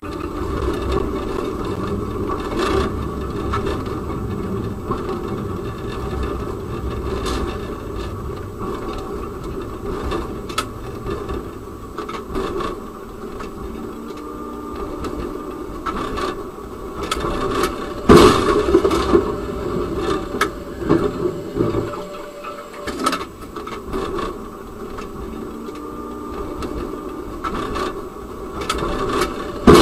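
Tram running, heard from inside the driver's cab: a steady rumble with rattles and small knocks, and a loud bang about eighteen seconds in.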